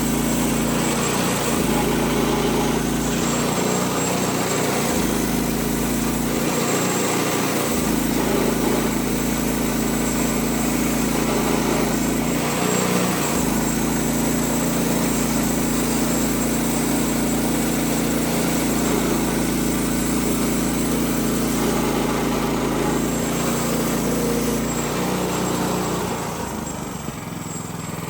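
Small gasoline engine running steadily at a constant speed, dropping a little in level near the end.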